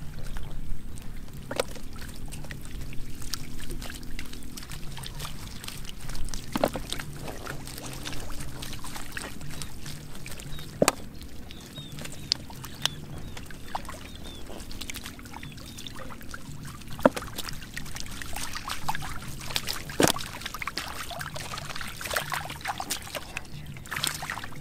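Splashing and slapping in shallow muddy water as fish are grabbed by hand and flop about in the puddle, with scattered sharp splashes, several of them louder than the rest.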